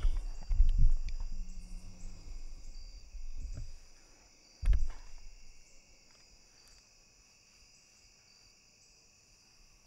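Camera-handling noise: rubbing and bumps against clothing and the tree stand, with one sharp knock about five seconds in, then quiet. A steady chorus of insects trills in the background throughout.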